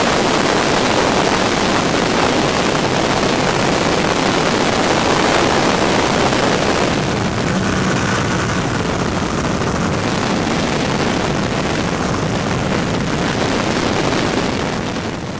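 Open cockpit of a de Havilland Tiger Moth biplane in flight: loud, steady rushing of wind over the microphone with the engine's drone underneath. About halfway through the hiss eases a little and the engine's low, even hum comes through more plainly.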